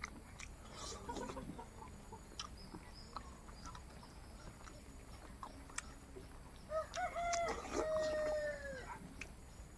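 A rooster crowing about seven seconds in: a few short broken notes, then one long held note that drops in pitch at the end. Faint clicks and smacks of eating with the hands sound throughout.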